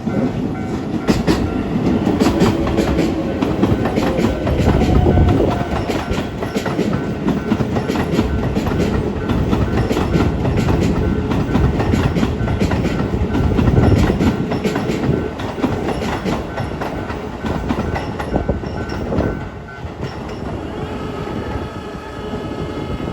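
Keisei 3700-series electric commuter train passing over a level crossing, its wheels clattering rhythmically over the rail joints, with the crossing's warning bell ringing steadily throughout. The train noise eases off a little about twenty seconds in.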